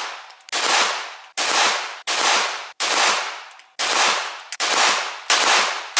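Canik TP9 Elite-S Combat 9mm pistol firing factory-new 124-grain FMJ rounds in slow, steady succession: about seven loud shots, roughly one a second, each trailing off in a short echo.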